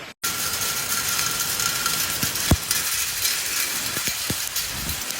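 Heavy rain hissing steadily, with a few sharp knocks of drops or debris striking something close by, the loudest about two and a half seconds in.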